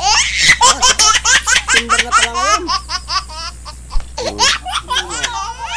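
People laughing in fast runs of high-pitched bursts, breaking off about halfway through and starting again a second later.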